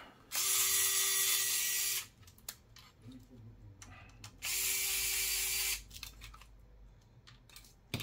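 Electric precision screwdriver running in two steady whirring bursts of about a second and a half each, backing out the screws that hold the mounting bracket on a laptop hard drive. Faint handling clicks come between the bursts.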